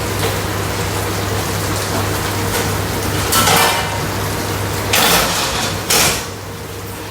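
Peanuts boiling hard in sugar syrup in a pan, a steady bubbling hiss, with a few brief louder scrapes of a spoon stirring about halfway through and near the end.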